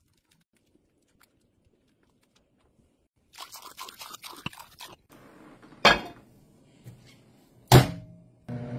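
After a few seconds of near silence, water is poured from a glass measuring cup into empty glass canning jars. Two loud knocks follow, and near the end a microwave oven starts running with a steady hum.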